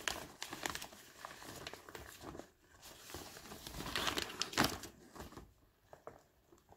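Crinkling of a plastic mailing bag and rustling of sheet latex as a latex garment is pulled out and unfolded by hand, in uneven bursts that are loudest about four seconds in and die away near the end.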